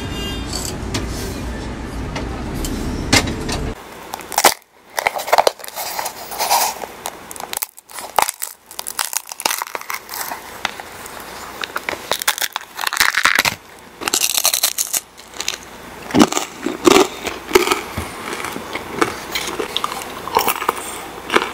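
Thin, crisp shell of a bubble hotteok (hollow Korean sugar pancake) crackling and crunching in irregular sharp snaps as it is broken up. For about the first four seconds a steady low street rumble is heard, which cuts off suddenly.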